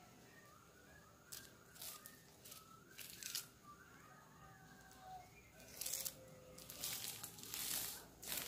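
Strands of blue plastic raffia rustling and scraping as they are twisted by hand and rubbed against the skin of a leg to lay up a spinning-top whip cord. It comes in several short rasps, loudest in the second half.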